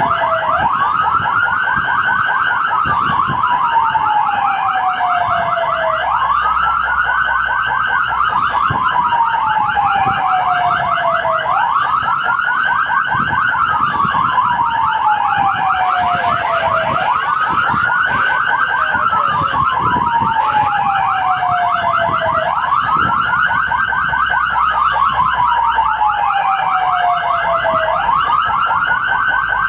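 Fire engine siren heard from inside the cab while responding. It wails, rising quickly and falling slowly about every five and a half seconds, over a fast-pulsing second siren tone.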